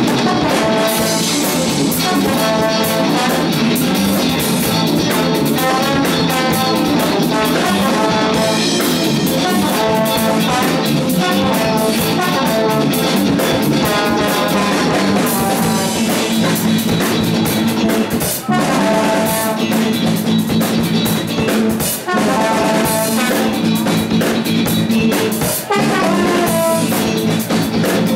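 Live jazz-fusion band playing: electric guitar, electric bass and drum kit, with the trombone playing melodic phrases over them. The band drops out briefly three times in the second half.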